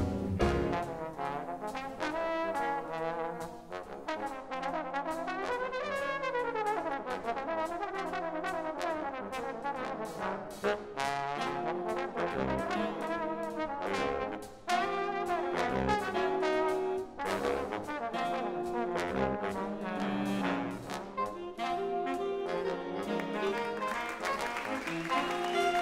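Big band jazz played live, with a trombone solo over the band and some sliding notes in places.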